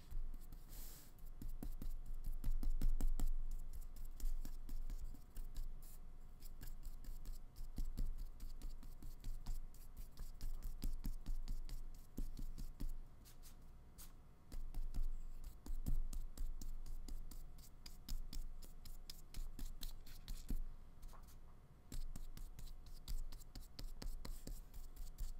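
A half-inch flat brush scratching and dabbing thick acrylic paint onto paper: a steady run of short scratchy strokes and light taps.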